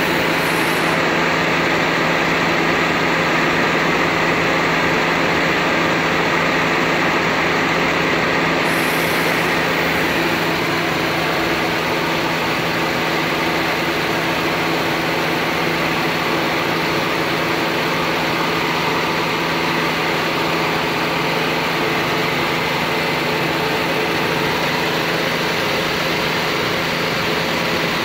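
A 2003 Mazda Protege's four-cylinder engine idling steadily with the air conditioning running, heard under the open hood.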